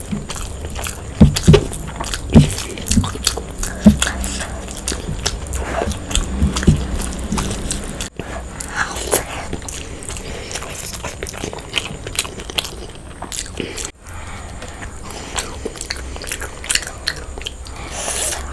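Close-miked eating: a person biting and chewing food, with many short wet clicks and crunches. There are several loud bites in the first four seconds.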